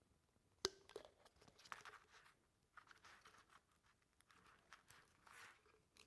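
Faint handling of a small plastic part: one sharp click about half a second in as the lid goes onto the water level control's container, then soft scattered taps and rustles, near silence overall.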